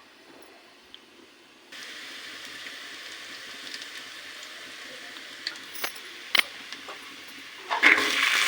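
Oil sizzling in a pan. It starts suddenly about two seconds in, a few sharp clicks of a utensil against the pan come in the middle, and the sizzling turns louder and crackling near the end.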